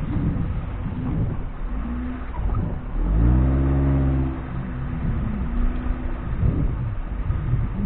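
Off-road vehicle's engine working over rough ground. About three seconds in it revs up sharply and holds for over a second, the loudest part, then drops back to a lower, uneven run.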